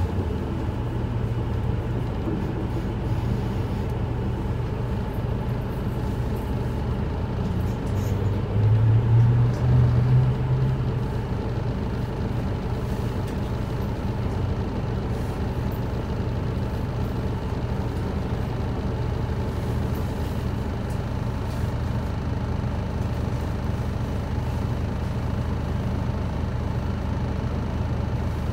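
Isuzu Erga city bus's four-cylinder turbodiesel heard from inside the cabin, running steadily at a low drone. About eight seconds in, the engine note rises and gets louder for a few seconds, then settles back to idle while the bus stands.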